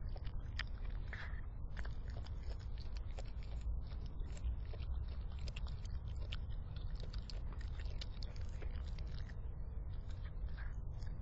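Raccoon biting and chewing chicken scraps close to the microphone, a run of small irregular crunches and clicks.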